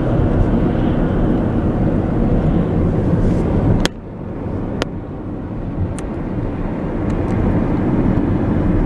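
Steady low rumble of a car on the move. The level drops suddenly about four seconds in and then builds back up, with a few sharp clicks in between.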